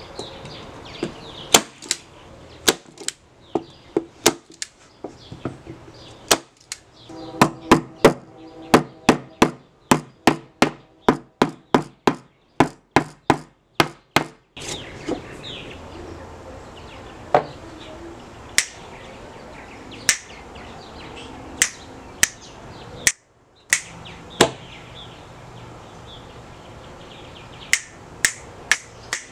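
Hand-squeezed manual staple gun driving staples into thin plywood box edges, one sharp snap per staple. There is a quick run of about two a second in the middle and more spaced shots before and after. Faint bird chirps at the start.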